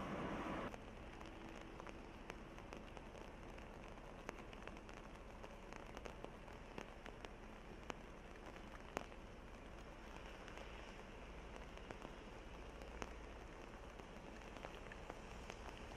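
Light rain falling, a faint even hiss dotted with many small, sharp drop ticks. A louder sound cuts off abruptly under a second in.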